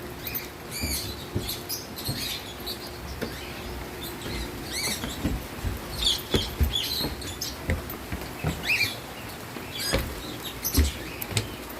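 Many short, high chirps scattered irregularly, typical of small birds calling, with irregular low thumps underneath.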